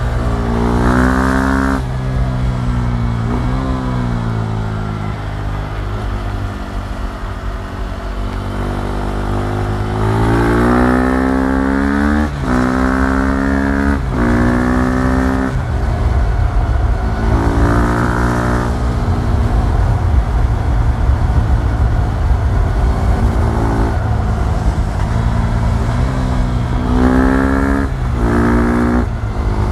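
KTM Duke 390's single-cylinder engine accelerating hard in repeated bursts, its pitch climbing and breaking off at quick upshifts (twice in a row about halfway through). Between the pulls it drops back and runs at a steadier, lower pitch.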